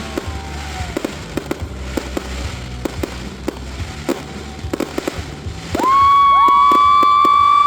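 Fireworks going off in rapid, scattered pops and cracks over a low rumble. About six seconds in, several whistling fireworks start up together with a loud, steady high whistle, the loudest sound.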